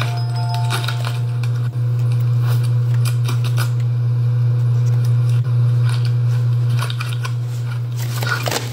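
Stiff paper rustling and crinkling in short clicks as a handmade paper puppet head is handled and moved. Under it runs a loud, steady low hum with two brief dropouts.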